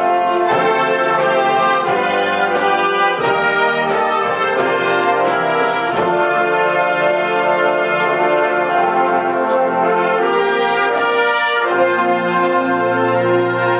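A large high school marching band playing a brass-heavy piece, with trumpets and trombones over drum strikes that fall evenly about twice a second. About three-quarters of the way through the chord changes and the low brass grows stronger.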